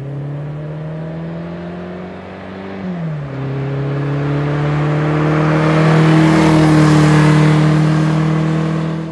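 1965 Fiat Abarth 1000 OT Spider's Abarth-tuned inline-four accelerating as the car drives past. The engine's pitch climbs, drops with a gear change about three seconds in, then climbs again, and the sound is loudest as the car passes, about seven seconds in.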